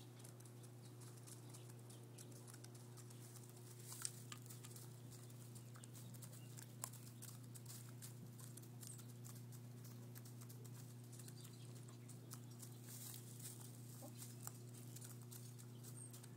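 Hens pecking chicken scratch grain from straw bedding: a scatter of faint, irregular sharp taps and rustles, the loudest about four seconds in, over a steady low hum.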